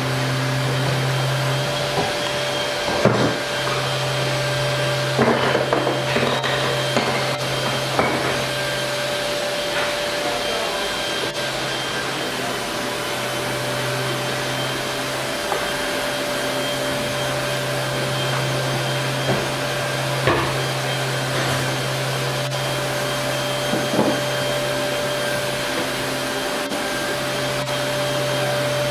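Steady drone of a motor-driven machine, like a vacuum or extractor running, with a low hum and a steady whine, and a few light knocks scattered through.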